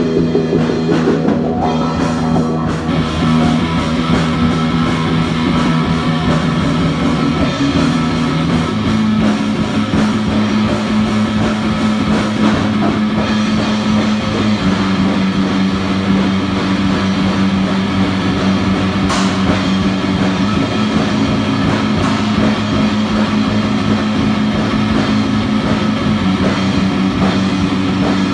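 Rock music: a drum kit and guitars playing over held bass notes that shift pitch every several seconds.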